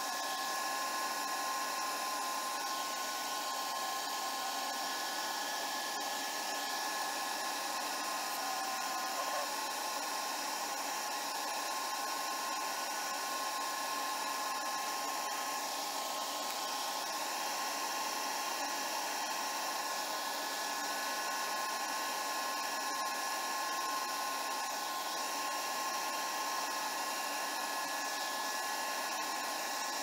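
Lathe running steadily at full speed while a turning tool cuts down an Alumilite resin pen blank, a constant whine over a hiss.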